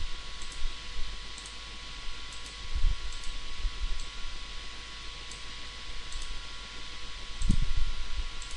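Scattered faint computer mouse clicks over a steady hiss and electrical whine, with two dull low thumps, about three seconds in and near the end.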